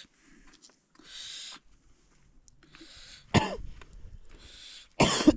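A person coughing, sharply about three seconds in and loudest near the end, with short breathy puffs of air in between.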